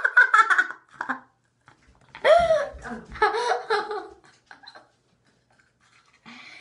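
A person laughing with a toothbrush in the mouth, in two bouts: one at the start and another about two seconds in.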